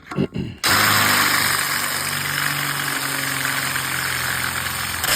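Electric drill starting suddenly about half a second in and running steadily with a hum and hiss, its bit cutting through tough steel to bore a hinge hole.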